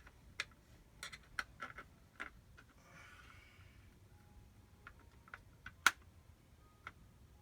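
Scattered light clicks and taps of hand tools and small metal pump parts being handled and loosened, with one sharper click about six seconds in.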